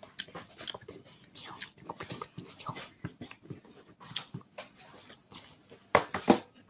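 Close-up eating sounds of a person eating rice and chicken curry by hand: irregular wet chewing, lip smacks and finger-licking clicks, with two louder sharp smacks close together about six seconds in.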